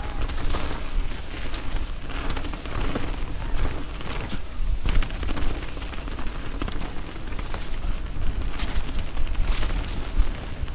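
Mountain bike riding fast down a dirt trail strewn with dry leaves: wind rumbling on the microphone, tyre noise on the dirt, and a steady run of clicks and rattles from the bike jolting over bumps.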